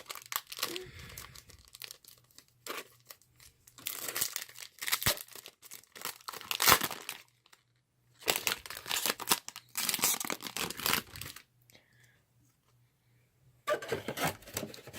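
Foil trading-card pack wrappers crinkling and tearing open in several bursts of rustling, with short quiet gaps between.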